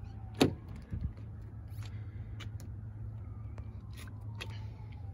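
Car door handle pulled and the driver's door unlatching with a sharp click about half a second in, then a few soft knocks as the door swings open, over the steady low hum of the 3.6 L V6 idling on remote start.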